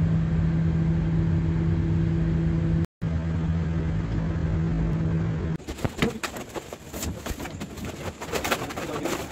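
A steady low hum, cut off briefly about three seconds in. From about five and a half seconds it gives way to irregular knocks, clicks and shuffling as a group of men manhandle a large plastic-wrapped switchgear panel.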